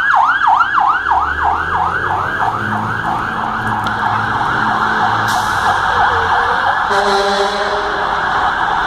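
Fire truck's electronic siren starting up in a fast yelp, about five sweeps a second, quickening until the sweeps blur into one continuous warble after about four seconds, with the truck's engine running underneath.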